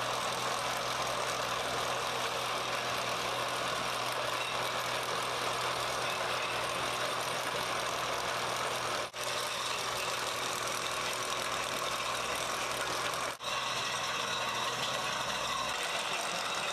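Heavy machinery running steadily, a constant mechanical engine noise. The sound drops out very briefly twice, about nine and thirteen seconds in.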